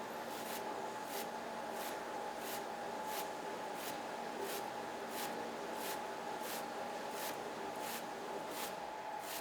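Steady machine hum with a clear high tone, overlaid by soft, evenly spaced swishing strokes, about one and a half a second.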